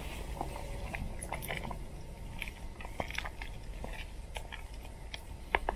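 Scattered small pops and crackles from a campfire and the pot of chili simmering over it, with a couple of sharper pops near the end.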